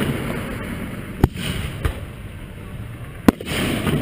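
Aerial fireworks shells bursting overhead: two sharp bangs, about a second in and again past three seconds, with a smaller pop between, each followed by a crackling spray.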